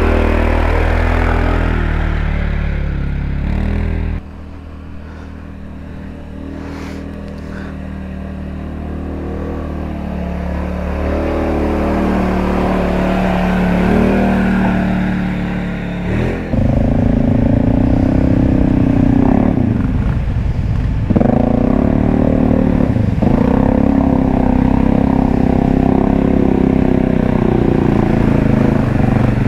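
Four-wheeler ATV engines working under load, their note changing abruptly at a couple of points. In the later part the revs rise and fall again and again as the throttle is worked.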